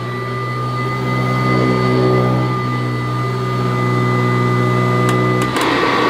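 Kirby Classic III upright vacuum cleaner running on carpet: the motor and its metal fan give a steady, ear-piercing high-pitched whine over a low hum, turning rougher and noisier near the end. The owner takes the high-pitched tone as unlike a Kirby and a sign that something is not quite right with this machine.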